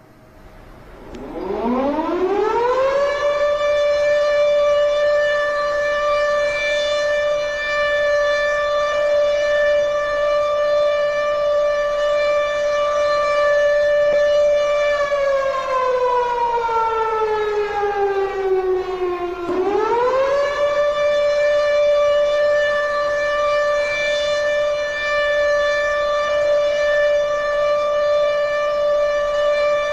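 Civil defense siren sounding a nuclear attack warning. It winds up in pitch over the first few seconds and holds a steady tone. About halfway through it slides down for a few seconds, then winds quickly back up and holds again.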